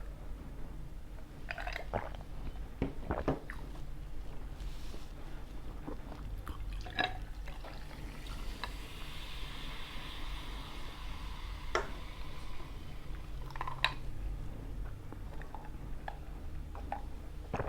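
Close-miked eating sounds of pizza being chewed, with scattered short clicks and knocks. Midway, a drink is poured into a glass for about three seconds.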